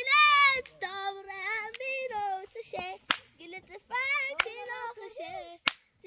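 A child singing a melody in a high voice, in short phrases, with three sharp clicks in the second half.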